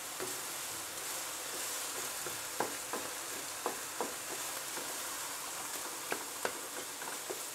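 Minced meat and chopped onion sizzling in a non-stick frying pan as it browns, stirred with a wooden spatula that gives scattered light taps and scrapes against the pan.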